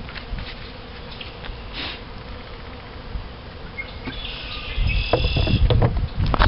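Honey bees buzzing around a hive in a steady hum, with scattered light clicks. From about five seconds in, louder low knocks and rumbling come in as the hive's outer cover is set down on top.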